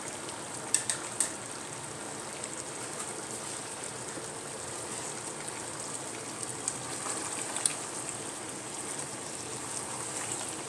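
Chicken curry cooking in a pan on the stove, a steady bubbling hiss, with a few short clicks of utensils, two about a second in and one later.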